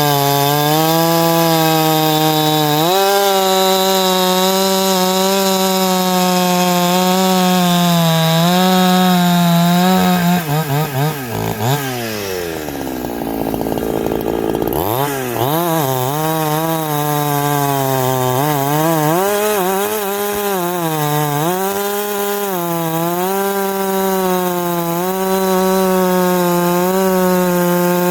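Two-stroke chainsaw fitted with a shotgun-style pipe muffler running at high revs with its speed wavering up and down. About eleven seconds in it drops quickly to a low speed for a few seconds, then climbs back to high revs.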